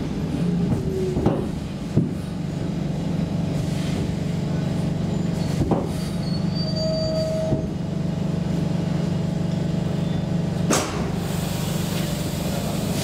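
Stockholm Metro C6 subway train heard from inside the car as it slows into a station, a steady low hum with a few short knocks and clanks, the sharpest near the end as it comes to a stop.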